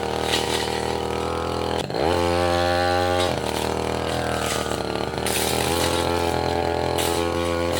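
Tasco 33 Pro two-stroke brush cutter running at high speed, cutting saplings and small roots. About two seconds in the engine pitch dips sharply as the blade bogs in the wood, then picks back up, and sharp clicks of the blade striking wood come through several times later on.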